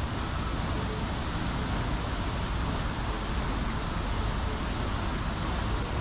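Waterfall's falling water making a steady, unbroken rushing noise.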